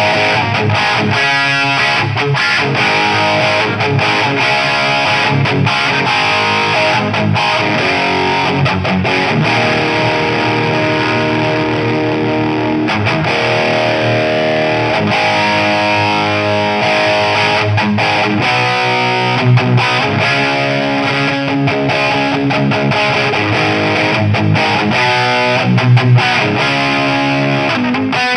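Electric guitar played with heavy distortion through a Mojotone British 800 kit, a hand-built JCM 800-style tube amp: continuous chords and riffs.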